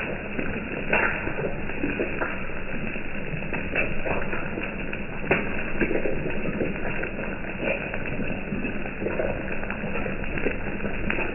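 An egg frying on a flat griddle, sizzling with irregular crackles and small pops.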